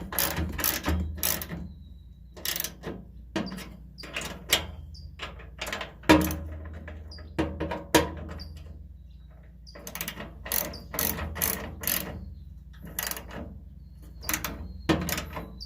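Hand ratchet with a 13 mm socket clicking in short bursts of back-and-forth strokes as it tightens the leg bolts, with a couple of sharper knocks about six and eight seconds in.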